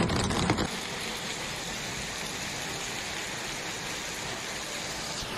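Steady hiss of hail and rain falling on a hail-covered street. Under a second in, a louder, deeper rumble from a car driving through the storm cuts off.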